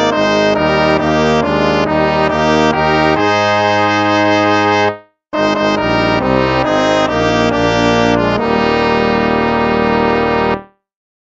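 Instrumental hymn played on brass instruments, in held chords, with a brief pause about five seconds in; the music stops near the end.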